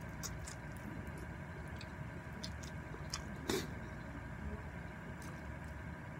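Close-up slurping and chewing of spicy instant noodles: scattered short wet mouth clicks, with one louder slurp about three and a half seconds in, over a steady background hum.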